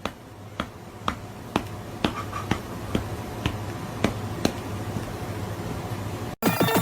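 A regular run of sharp clicks, about two a second, over a low steady hum; the clicks grow fainter in the second half.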